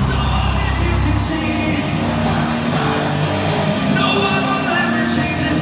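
Live rock band playing loudly in an arena, with distorted electric guitar, drums and a singer. It is heard from far back in the hall through a phone's microphone.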